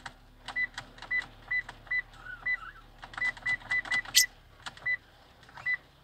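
Sparse, irregular raindrop taps on the car body, heard from inside the cabin, each with a short metallic ping, over a faint steady hum.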